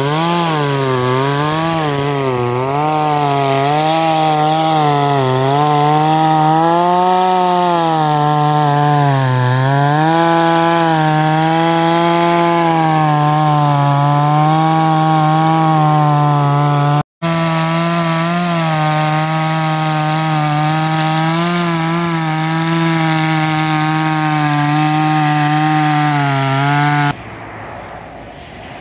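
Toyama chainsaw engine running under load as it cuts through a log, its pitch dipping and rising as the chain bites. There is a split-second gap about 17 seconds in, and the saw sound drops away abruptly near the end, leaving quieter outdoor noise.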